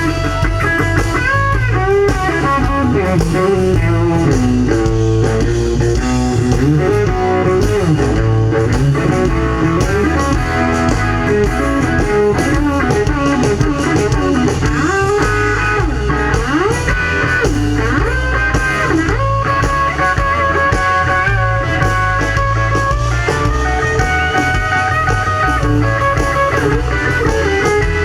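Live blues band playing an instrumental break: an electric guitar lead with bending notes over bass and drums.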